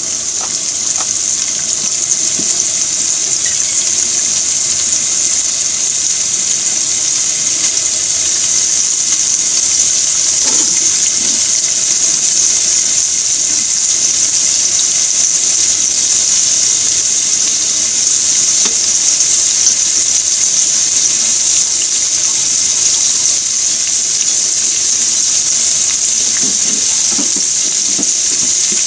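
Pork belly and vegetables sizzling steadily in hot oil in a frying pan, the sizzle building over the first couple of seconds after the meat goes in.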